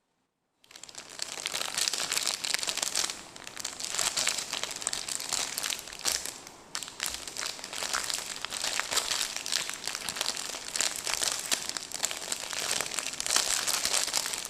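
Crinkly candy-bar wrapper being handled and torn open, a dense run of crackling and rustling that starts about a second in.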